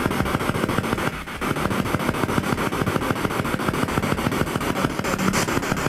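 P-SB7 spirit box sweeping through radio stations, giving a rapid, even chopping of radio static.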